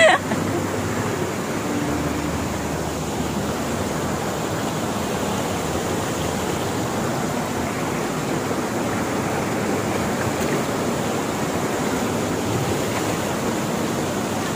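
Steady rush of water from a shallow rocky stream and small cascade.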